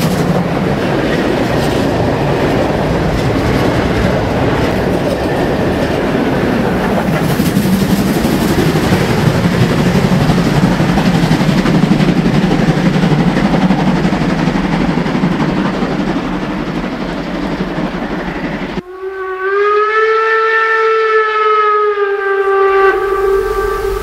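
A class 52.80 steam locomotive and its freight train running past, as a dense, steady noise. About 19 seconds in it switches abruptly to the locomotive's steam whistle, blown as one held multi-tone note for about five seconds.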